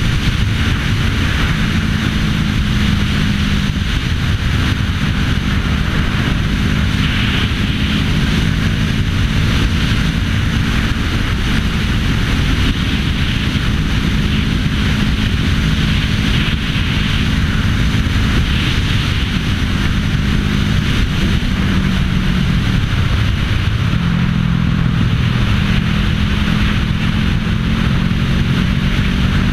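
Motorcycle engine running steadily at cruising speed, with heavy wind rush across the bike-mounted microphone. The engine note drops and climbs back again about three-quarters of the way through.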